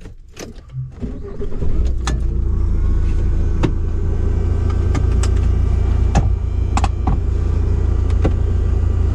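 A motor vehicle running: a steady low rumble of engine and road noise starts about a second in, with scattered light clicks and rattles over it.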